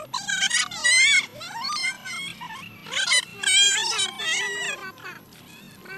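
Children's high-pitched wordless shouts and squeals, several in quick succession, fading near the end.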